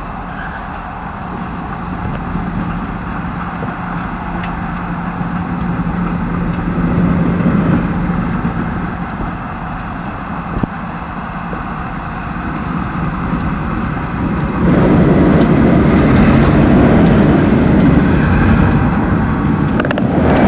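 Passenger train coaches rolling past on the rails with a steady rumble. About three-quarters of the way in the sound steps up and grows louder as the trailing Tacoma Rail diesel locomotive draws near.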